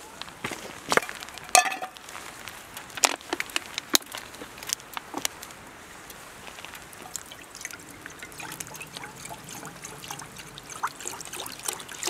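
Wood fire burning in a brazier, crackling with scattered sharp pops over a soft low hiss.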